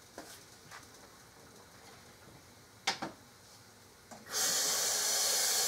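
A few faint clicks and a sharp double click, then a steady hiss that starts suddenly about four seconds in and cuts off just as suddenly about two and a half seconds later.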